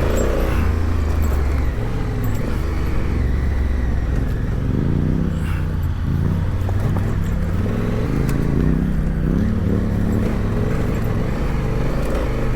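Adventure motorcycle engine running at low speed over rough off-road ground, its revs repeatedly rising and falling as the rider works the throttle and clutch.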